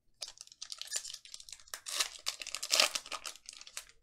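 Foil trading-card pack wrapper crinkling and tearing as it is opened by hand: a dense run of crackles, loudest about three-quarters of the way through.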